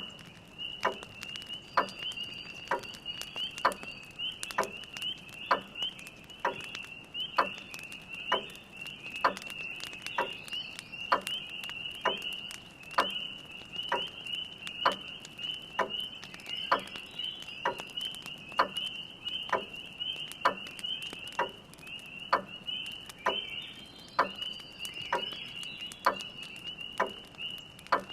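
Spring peepers calling in a dense, steady chorus of high peeps, over a grandfather clock ticking about once a second, with faint fire crackles.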